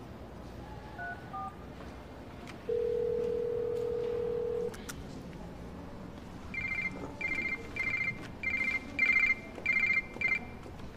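Mobile phone call sounds. A few soft keypad beeps come first, then a steady phone tone for about two seconds. Then the phone rings in a run of about seven short electronic trills, which stop a little after ten seconds.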